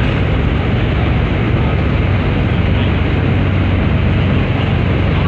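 A river car ferry's engine running steadily under way: a constant low drone beneath an even rushing noise.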